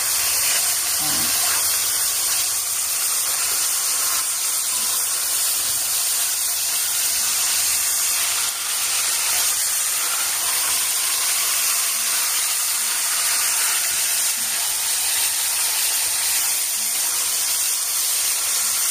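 Two whole chickens sizzling steadily in hot fat as they brown in an enameled cast-iron pot, being turned for even browning.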